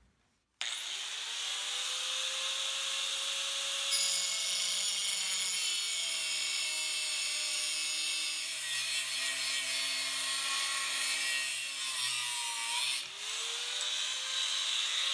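Angle grinder with a cutoff wheel spins up about half a second in and cuts through a forged 5160 steel knife blank, its whine sagging in pitch as the wheel bites into the steel and rising again near the end.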